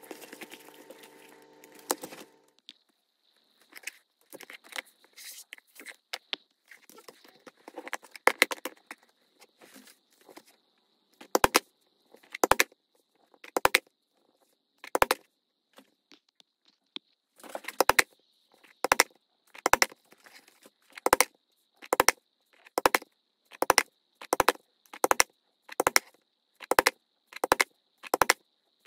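Mallet striking a leather punching tool, sharp knocks, irregular at first, then a steady beat of a little over one strike a second from about halfway through. A steady multi-tone hum plays in the first couple of seconds, and a faint high whine runs underneath.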